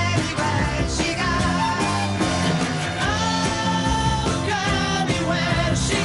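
A 1960s pop record playing: a lead singer over a full band, holding one long note from about three seconds in.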